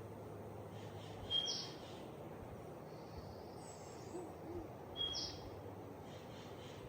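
A bird calling twice, about three and a half seconds apart, each a short, high call, over steady outdoor background hiss.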